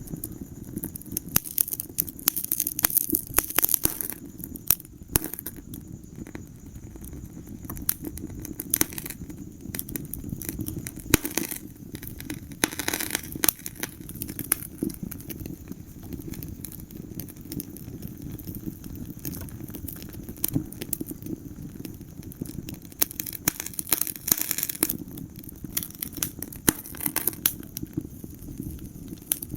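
Wood fire crackling in a fireplace: irregular sharp pops and snaps over a steady low rumble of the flames, with busier flurries of crackles about three times.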